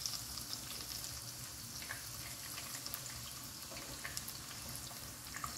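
Ivy gourds frying in hot oil in a pan: a steady sizzle with fine crackling ticks.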